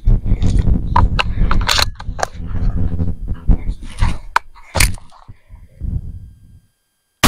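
Beretta 1301 12-gauge semi-automatic shotgun: handling clicks as it is loaded and readied, then three quick shots of low-recoil 00 buckshot under half a second apart, a little after halfway.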